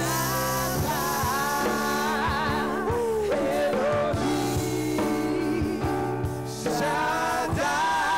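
Worship music: a singer holds long notes with a wavering, vibrato-like pitch over sustained chords, with a brief pause in the singing a little after six seconds.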